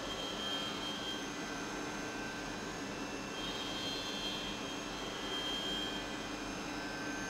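CNC milling machine running: a steady mechanical hum with a high whine that comes and goes several times.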